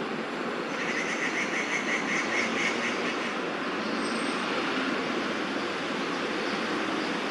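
Steady hum of city traffic, with a bird giving a quick run of about nine repeated notes starting about a second in.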